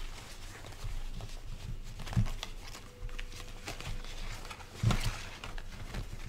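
Hands rummaging through a cloth bag of fortune cards: fabric rustling and cards shifting inside, with two dull bumps about two and five seconds in.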